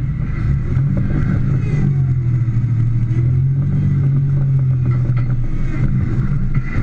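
Modified 3rd-gen Toyota 4Runner rock crawler's engine pulling under load over rocks: it revs up about a second in, holds a steady drone for several seconds, then eases off.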